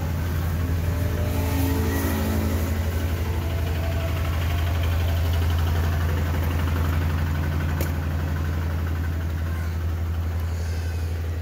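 Engine running steadily at idle, a low drone with a fine even pulse, and one light click about eight seconds in.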